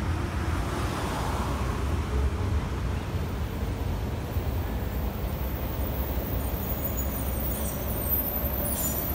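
Steady road-traffic rumble mixed with a Siemens C651 train pulling away along the elevated track, with a faint rising whine in the first couple of seconds. A bus passes near the end, with a short hiss.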